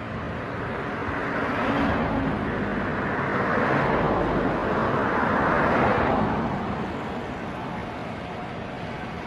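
Road traffic: a vehicle passing close by, its noise swelling over the first couple of seconds, loudest from about two to six seconds in, then fading away.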